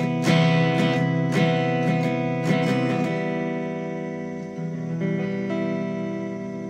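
Background music on guitar: a few strummed chords about a second apart, then a last chord rings on and slowly fades away.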